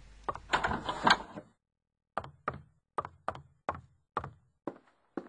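A brief clatter, then knocking on a door: a steady run of single knocks, about two a second.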